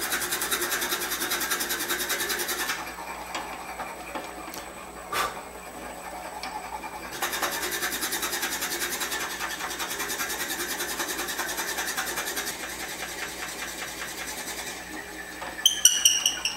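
Robust Scout wood lathe running while a 1/2-inch drill bit fed from the tailstock bores a hole through a wooden handwheel, with a fast even rhythm. The cutting is loud in two spells with a quieter spell between, and there is a brief high squeal near the end.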